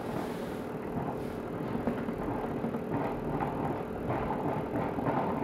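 Tepal upright garment steamer running steadily while its steam head is worked over a shirt, with a few faint clicks of the head against the fabric and stand.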